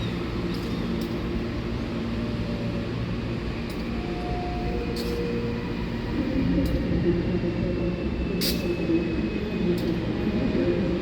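Commuter train running through the station: a steady low rumble with a few hums, sharp clicks scattered through it, growing louder about six seconds in.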